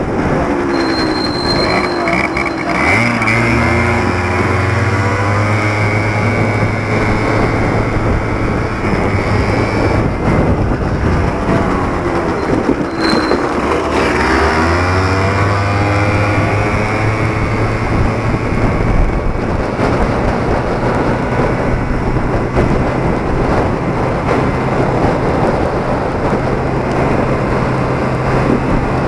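Yamaha Aerox two-stroke scooter engine running at riding speed, with even rushing noise over it. The revs sweep up and down about two seconds in and again around thirteen seconds in.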